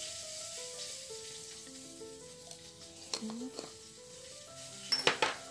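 Boneless milkfish (bangus) steaks sizzling in hot cooking oil in a pan, a steady hiss, under soft background music. A couple of light taps come about three and five seconds in.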